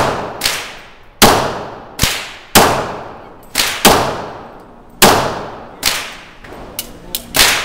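Baby Desert Eagle pistol in .40 S&W firing shot after shot, about one every second and a quarter, each crack followed by a ringing, fading tail. Fainter shots fall between them.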